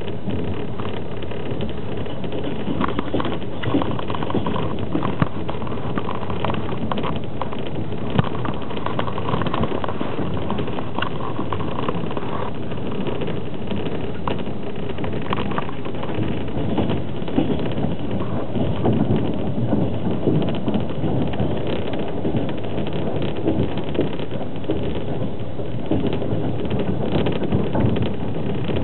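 Passenger train running at speed, heard from inside an open-berth carriage: a steady rumble of the wheels on the track with scattered clicks and knocks.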